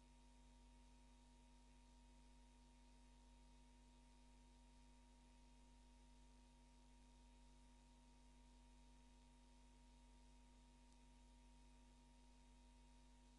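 Near silence: a faint, steady hum and hiss that do not change.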